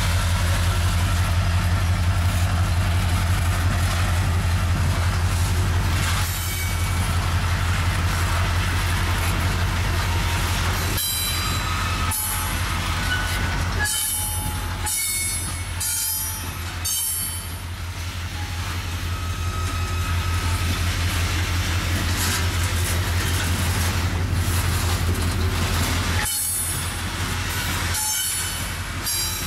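Train of flatcars and a many-axled heavy-load car rolling past: a steady low rumble of wheels on rail, with high-pitched wheel squeal coming and going, mostly in the middle and near the end.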